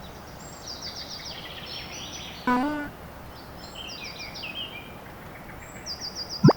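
Outdoor ambience track of steady background noise with birds chirping in quick high trills. About two and a half seconds in comes a short pitched cartoon sound effect, and near the end a very quick rising 'bloop' sweep, the loudest sound.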